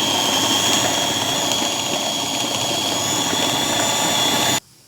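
Electric food processor running at full speed, a steady high whine over a churning grind as it purées hot steamed dried figs with garlic and olive oil. The motor cuts off suddenly near the end.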